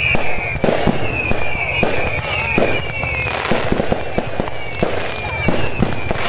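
Fireworks and firecrackers going off in a steady barrage of irregular bangs and crackles, with a high falling whistle that repeats over and over.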